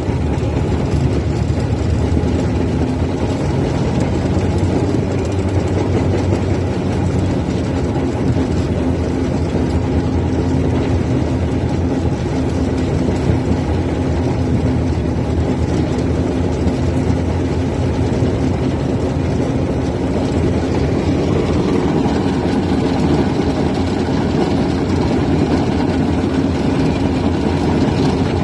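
Fowler steam ploughing engine running steadily, a continuous low mechanical sound with a steady hum and no breaks.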